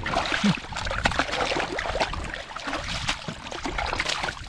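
Shallow stream water splashing and sloshing in quick irregular bursts as bare hands grab and scrabble at a fish wedged under a rock, over the steady running of the stream.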